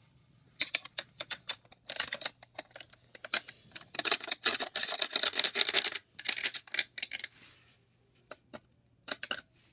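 Plastic alarm clock and its loose parts being handled: bursts of rapid clicking and rattling, densest in the middle, then a few scattered single clicks near the end.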